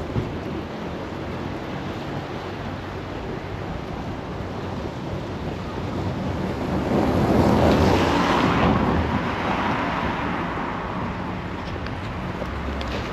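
A car passing on the street: tyre and engine noise swells, peaks about eight seconds in and fades away, over a steady background of wind on the microphone.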